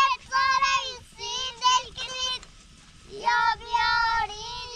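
A child singing a folk song in a high voice, holding long wavering notes in phrases, with a pause of about a second midway.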